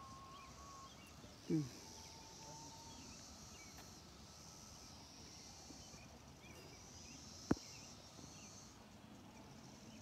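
Quiet open-air evening ambience of insects chirring steadily, with faint bird chirps. A brief falling sound comes about one and a half seconds in, and a single sharp click about seven and a half seconds in.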